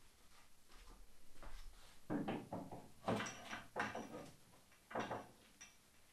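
Hard parts being handled on a wooden workbench: a handful of irregular knocks, clacks and scrapes, the loudest between about two and five seconds in.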